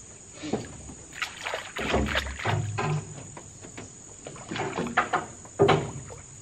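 Irregular splashes and knocks: a cane fishing pole slapping the water and bumping against a canoe, a dozen or so short hits, with the sharpest one near the end.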